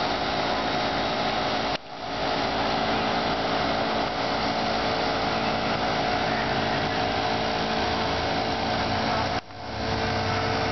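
Engine running steadily at a constant high speed, a continuous droning whine that holds one pitch; it dips briefly about two seconds in and again near the end.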